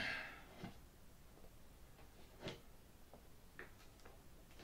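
A few faint, short clicks of steel T-pins being pulled out of a balsa hinge line and handled, the clearest about two and a half seconds in.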